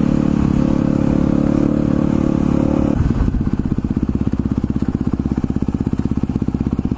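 Yamaha WR250 single-cylinder four-stroke dirt bike engine running at a steady cruise. About three seconds in, the revs drop to a low, evenly pulsing putter as the bike slows down.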